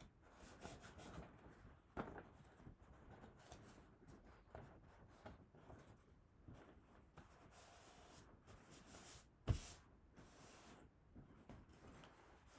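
Faint rubbing and rustling of paper being worked with a glue stick and pressed onto a craft stick, with a light knock about two seconds in and a sharper one about three-quarters of the way through.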